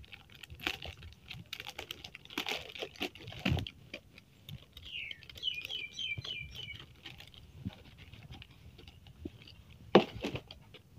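Plastic packaging and folded T-shirts being handled: scattered rustles, crinkles and light clicks, with a sharp knock near the end. About halfway through, a short run of quick high chirping notes sounds over it.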